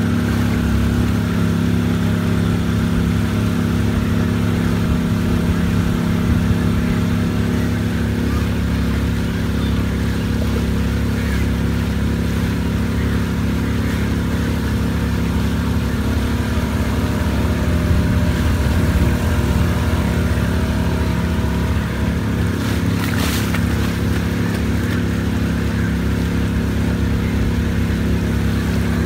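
Motorboat engine running steadily at cruising speed, a constant low drone with a hiss of water and wind over it.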